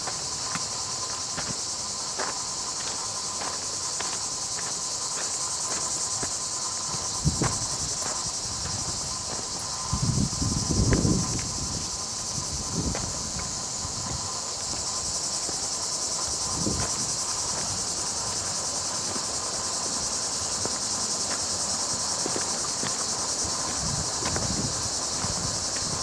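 A steady, high-pitched chorus of insects, with a few soft low thumps, the loudest about ten seconds in.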